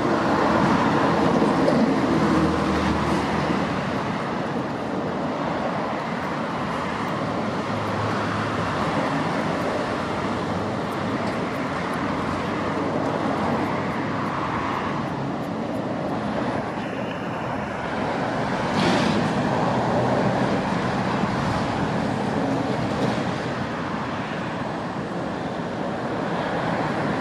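Steady road-traffic noise, an even rumbling hiss with a brief higher sound about two-thirds of the way in.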